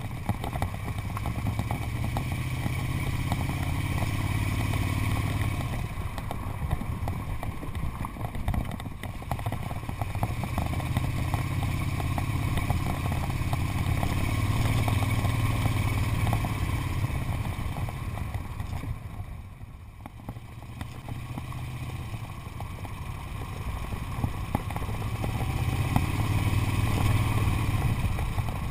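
1976 Moto Guzzi Convert's air-cooled V-twin running under way on a dirt road. Its engine note swells and eases off three times and dips lowest about two-thirds through, over a constant clatter and rush from the rough surface.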